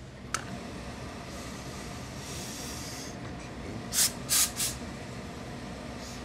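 Tailor's steam iron letting off steam: a soft hiss, then three short, loud hisses in quick succession about four seconds in, with a single click just after the start.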